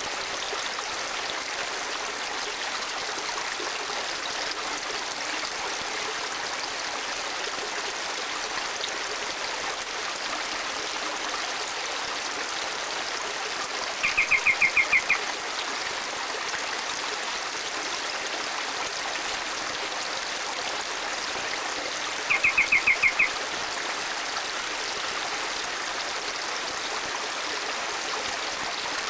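Steady rush of a stream. Twice, a bird gives a short, rapid, high trill lasting about a second, louder than the water.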